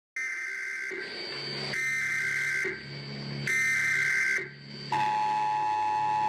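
Emergency Alert System alarm: three short buzzy data bursts of the header tones, then, about five seconds in, the steady two-note attention tone, over a low droning bed.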